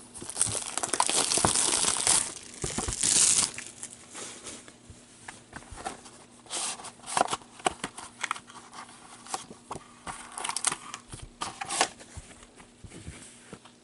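Packaging of a sealed box of trading cards being torn open and crinkled, loudest in the first three and a half seconds, then lighter scattered crinkling and clicks as the box and its contents are handled.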